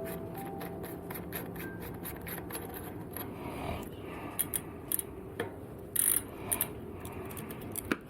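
Metal-on-metal scraping and clinking as a bicycle cassette is worked loose with a chain whip, lock-ring tool and spanner and slid off the freehub, with a few sharp clicks in the second half.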